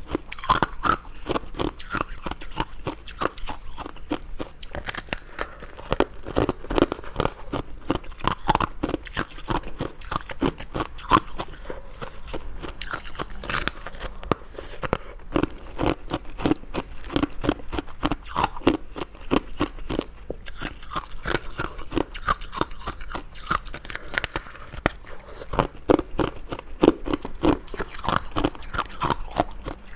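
Hard ice being bitten and chewed close to the microphone: continuous, crisp crunching with many rapid cracks, one bite after another.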